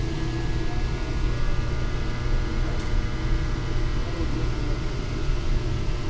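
Steady low rumble and hum of background machinery, with a few faint steady high tones over it and no distinct events.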